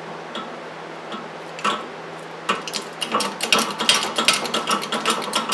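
Metallic clicking and rattling as a rusty brake backing plate is handled and set up on a hydraulic shop press. A few light ticks at first, then from about halfway a dense run of sharp clicks and rattles.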